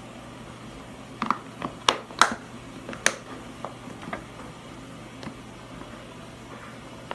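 A utensil tapping and knocking against a container as baking soda is added to the slime mix. The sharp taps come in a cluster from about one to four seconds in, the two loudest close together near two seconds, then thin out over a steady low hum.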